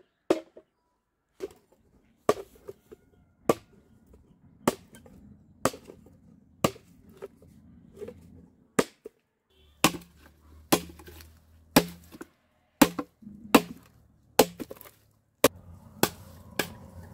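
Machete chopping bamboo: sharp, single blows about once a second, each a crisp crack on the hollow cane.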